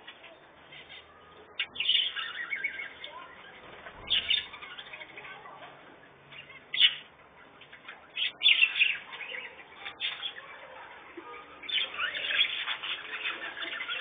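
Pet canaries in a cage chirping in short bursts every second or two, with a few sharp clicks and wing flutters between.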